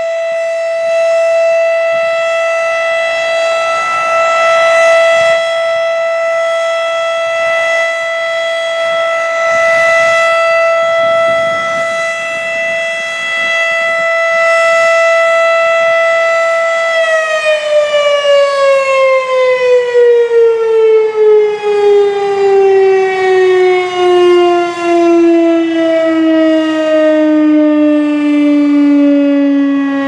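Federal Signal Thunderbeam RSH-10 outdoor warning siren sounding its steady single-tone test alert, then cutting power a little over halfway through and winding down in a long falling pitch. During the wind-down the loudness swells and fades rapidly.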